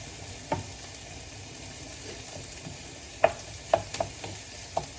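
Garlic and onions sizzling in hot oil in a pan while being stirred, with a steady frying hiss. A few sharp clicks of the stirring utensil against the pan, mostly in the second half.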